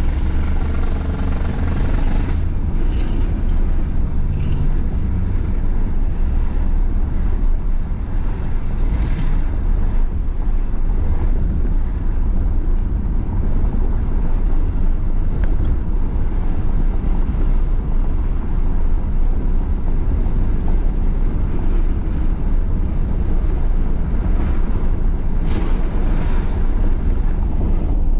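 Steady low rumble of road and wind noise from a vehicle driving along a road.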